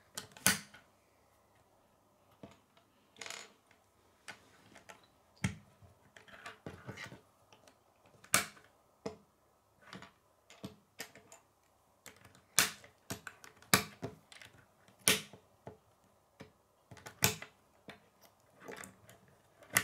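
Plastic K'nex rods and connectors clicking and snapping as they are pushed together by hand: irregular sharp clicks, a dozen or so scattered through, some louder than others.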